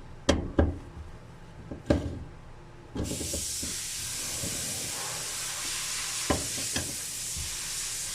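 A few sharp clicks and knocks of hand tools at the fuel pump access, then from about three seconds in a steady hiss of compressed air blowing dust away from around the fuel pump.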